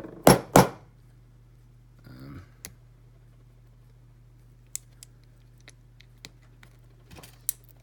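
Small clicks and taps from an Ace closed-shackle padlock being handled and worked on by hand as it is taken apart, with two sharp knocks near the start and scattered light clicks after.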